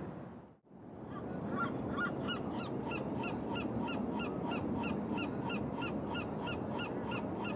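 Sea lions barking from a crowded rock breakwater: short, evenly repeated barks, about three a second, starting a little over a second in, over a steady background rush.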